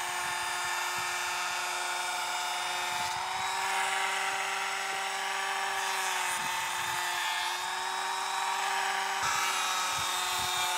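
Bosch Professional cordless brushless power planer running steadily as it cuts along the scribed bottom edge of a skirting board, its high whine dipping slightly in pitch a couple of times.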